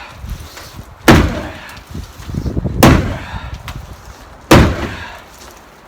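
Sledgehammer blows against the shed: three heavy strikes about a second and a half apart, each a sharp crack that fades out quickly.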